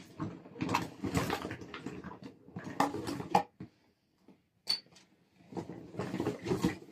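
Empty cosmetic packaging, cardboard boxes and bottles, being rummaged through and handled: irregular rustling and light knocks, with one short sharp click about two-thirds of the way in.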